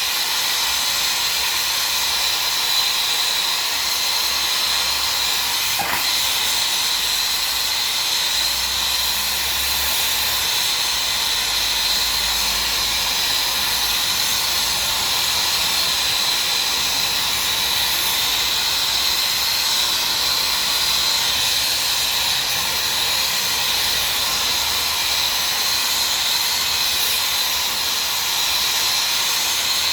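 A steady, unbroken hiss with a thin high tone running through it.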